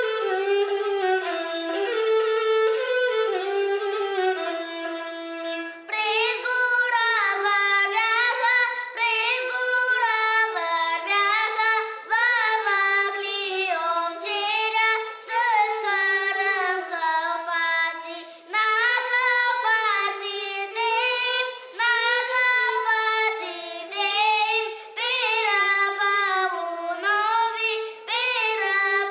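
A gadulka, the Bulgarian bowed folk fiddle, plays the melody alone for about six seconds. A young boy then sings a Bulgarian folk song over the fiddle's accompaniment, in phrases with short breaths between them.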